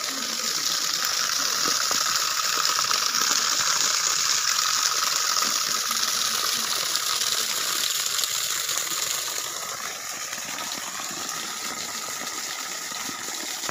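Muddy water gushing steadily from the end of a wide corrugated hose and splashing onto loose earth, water being pumped up out of a hand-dug well. The flow eases slightly about two-thirds of the way through.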